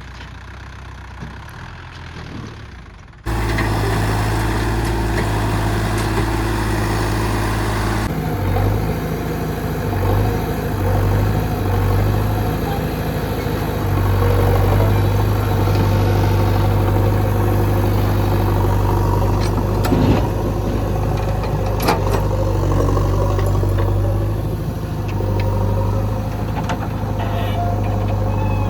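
Diesel engines of a backhoe loader and tractors running at work, loud and steady, becoming suddenly louder about three seconds in, with a few sharp knocks later on.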